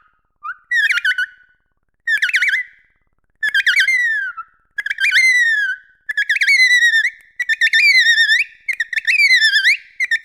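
Dolphin whistling: short, rapidly warbling whistles come in separate bursts at first, then run into a near-continuous string from about six seconds in, with sharp clicks among them.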